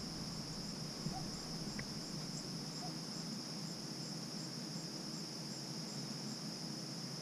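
Steady outdoor chorus of crickets: a continuous high-pitched trill, with a fainter higher chirp repeating about twice a second.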